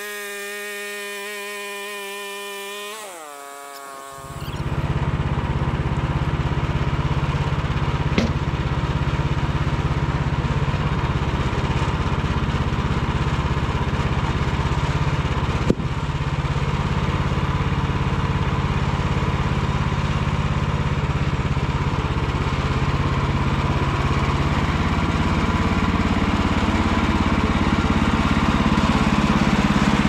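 A steady electric motor whine, the sawmill head being raised, winds down and stops about three seconds in. About a second later the Woodland Mills sawmill's Kohler gas engine comes up to speed and runs steadily and loudly, with two short sharp knocks along the way.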